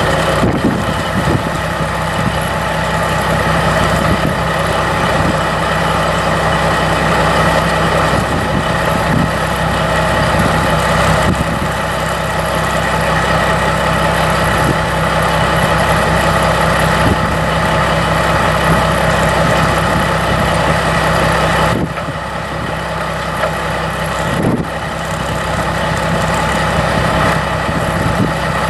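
Caterpillar 3406 14.6-litre inline-six turbo diesel in a Kenworth T600 truck idling steadily.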